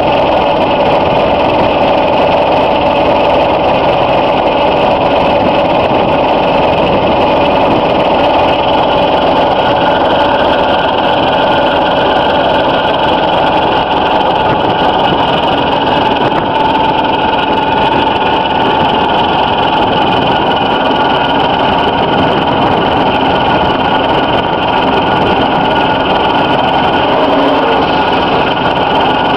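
Manure spreader's prototype twin-disc spinner attachment running steadily, its two steel discs spinning empty, giving a constant mechanical hum with a steady whine over it.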